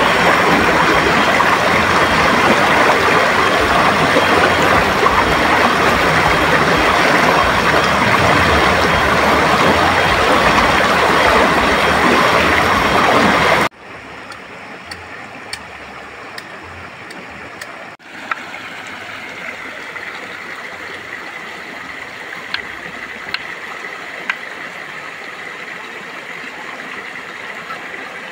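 Swollen river rushing loudly and steadily. About fourteen seconds in it cuts abruptly to a much quieter steady rush with scattered sharp clicks.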